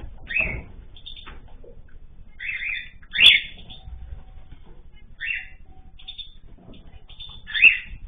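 Cockatiels calling: a series of short chirping calls spaced a second or two apart, the loudest a little past three seconds in, with a sharp click at the same moment.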